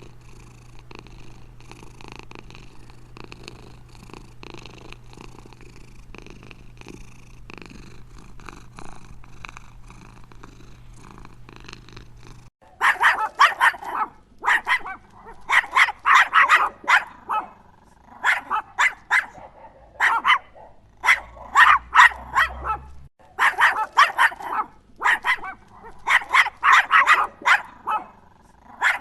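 A cat purring steadily, then about twelve seconds in a dog barking repeatedly in quick runs of sharp barks.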